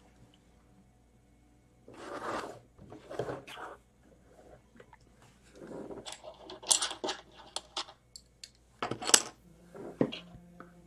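Loose plastic LEGO pieces being handled on a tabletop: a couple of short rustling scrapes, then a run of sharp clicks and clatters as pieces are picked up and knocked together, the loudest about nine seconds in.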